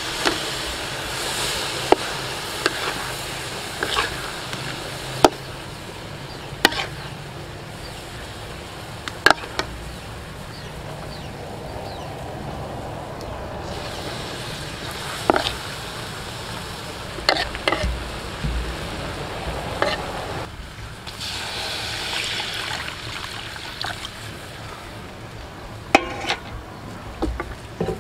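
Fish braising in sauce in a steel wok: a steady sizzle, louder near the start and again about two-thirds through, with sharp clinks of a metal ladle against the wok every few seconds.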